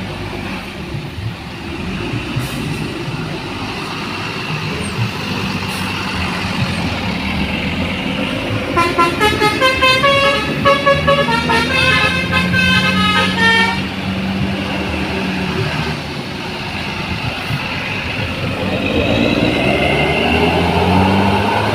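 Bus engine and traffic running. From about nine seconds in, a basuri musical bus horn plays a quick telolet tune of short, changing notes for about five seconds.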